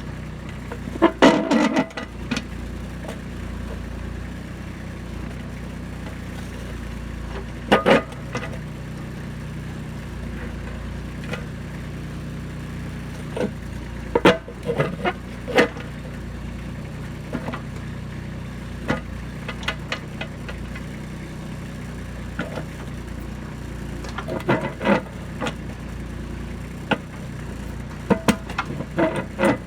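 Kubota B2630 compact tractor's diesel engine running steadily while its backhoe digs rocks out of the ground, with short bursts of clanks and knocks from the bucket and rock five or so times.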